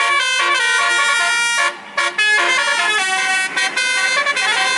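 Telolet bus musical horn playing a quick tune of stepped notes, several sounding together, with a short break about two seconds in.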